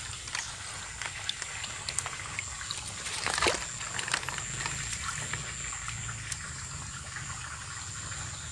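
A bare hand groping in shallow muddy water in an eel hole: small sloshing and trickling with scattered crackles of dry straw, the loudest stir about three and a half seconds in.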